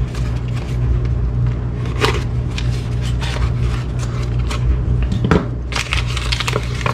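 A small cardboard box being cut open and a foil-wrapped package slid out by hand: scattered scrapes, rustles and crinkles, over a steady low hum.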